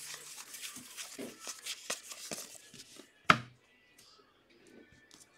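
Trading cards being handled in plastic sleeves: a dense rustle of card and plastic sliding against each other, with small clicks, for about three seconds. Then one sharp tap, the loudest sound, and only faint handling after it.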